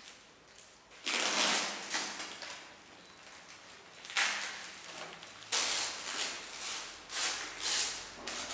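Printed paper strips being torn and peeled off a wrapped skull, in about six separate ripping, rustling bursts, the longest about a second in.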